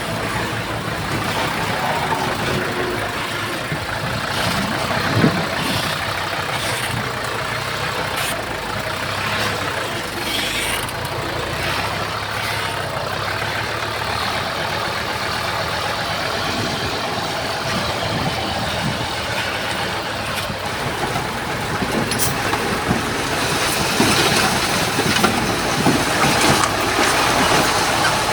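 Heavy earthmoving machine's diesel engine running steadily, with occasional knocks and clanks. It grows somewhat louder near the end.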